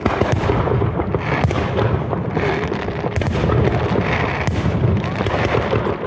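Many fireworks going off at once: a dense run of bangs and pops over a steady low rumble, with several sharper cracks standing out.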